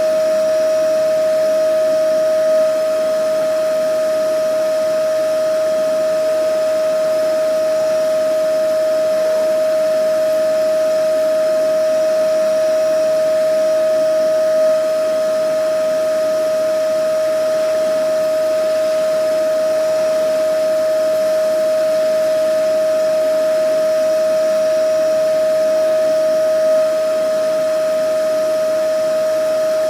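Vacuum cleaner running steadily: a constant high motor whine over the rush of air, with slight swells in level about every twelve seconds.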